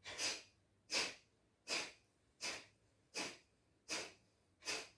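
Forceful single-nostril exhalations of Kapalbhati breathing through the left nostril, the right one blocked by the thumb: short, sharp puffs of air in an even rhythm, about one every three-quarters of a second, seven in a row.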